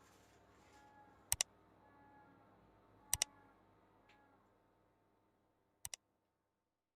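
Three sharp double clicks, spaced about two seconds apart, over near silence; the last pair is fainter.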